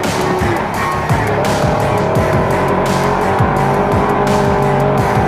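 Naturally aspirated side-by-side race UTV's engine running at a steady, reduced speed, held to 25 mph through a speed-check zone, heard from inside the cockpit. Its pitch steps up slightly once, about a second and a half in.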